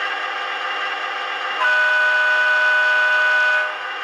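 Digital diesel sound from the MTH DCS sound system in an HO-scale Santa Fe F7 model locomotive. The engine sound runs steadily, and about one and a half seconds in a horn blast sounds, a chord of several steady tones lasting about two seconds.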